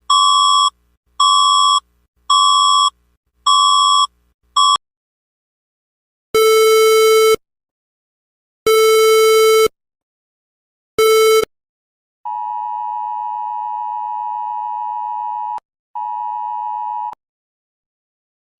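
Electronic emergency-alert tones. First come five short high beeps about a second apart, the last cut short. Then come three longer, lower and harsher tones a couple of seconds apart, and last a steady alert tone held for about three seconds, which breaks off and sounds again briefly.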